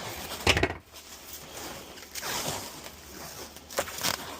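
Plastic packing wrap being handled: crinkling and rustling, with a short, loud squeak about half a second in and a few sharp clicks near the end.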